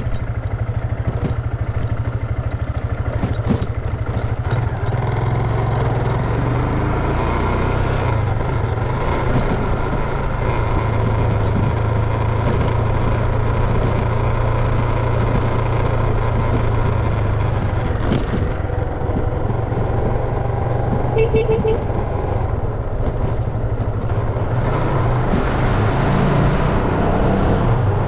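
Motorcycle engine running steadily while riding along, with wind rushing over the camera's microphone.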